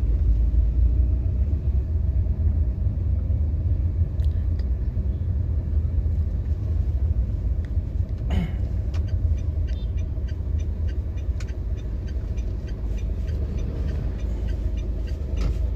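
Steady low rumble of a moving car heard from inside the cabin, with a single knock a little past halfway and then faint, evenly spaced ticking.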